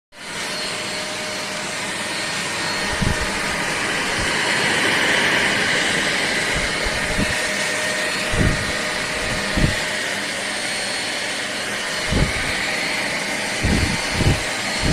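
Deerma DX115C 2-in-1 handheld vacuum cleaner running with a steady whooshing hiss, broken by a few short low thumps.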